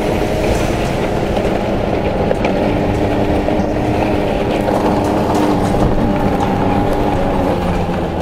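Snowmobile engine running steadily under way as the sled crosses bumpy, snowy ground, heard from the rider's seat.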